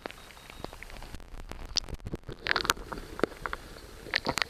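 Muffled river-water rumble heard through a submerged camera, with scattered clicks and knocks and a few short hissing splashes.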